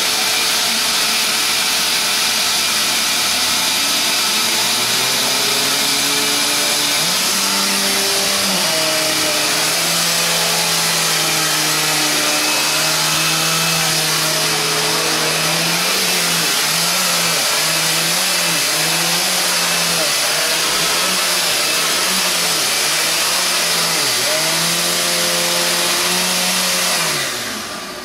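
Upright vacuum cleaner running on carpet, a loud steady noise with a pitched tone that repeatedly dips and wavers. It is switched off about a second before the end and the sound winds down.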